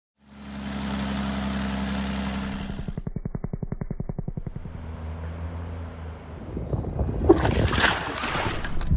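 Maule M6 light aircraft's piston engine and propeller running steadily, then dropping to a slow idle with a fast, even beat about three seconds in. Near the end, water splashing and churning takes over.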